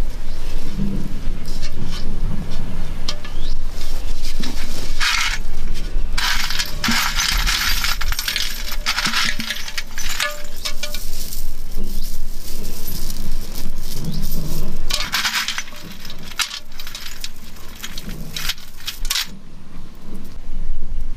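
Metal chain jewellery jingling and clinking as the chains are pulled out of a clay pot by hand, in several bouts of rapid clinks.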